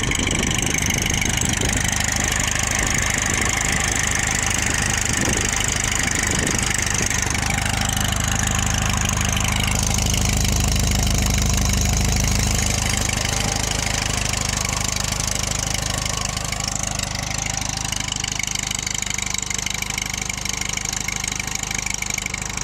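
A 1946 Case VAC tractor's four-cylinder engine idling steadily while the tractor stands still, growing a little louder for a few seconds about halfway through.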